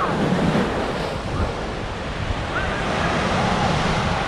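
Ocean surf washing and breaking along the shore, with wind buffeting the microphone in a low rumble. A faint shout comes through partway in.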